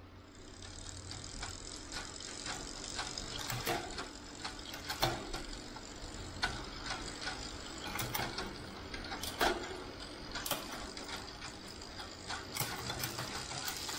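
The drivetrain of a Trek Émonda SL 6 Di2 bicycle turning over with the rear wheel spinning: a steady whir with a ratcheting tick, and sharper clicks every second or so. This is heard during the rear derailleur adjustment step of the Shimano 105 Di2 setup.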